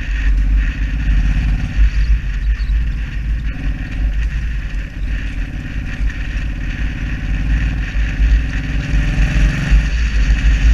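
Cruiser motorcycle engine running steadily at road speed, heard from the rider's seat, under a heavy choppy rumble of wind on the microphone. It grows louder near the end.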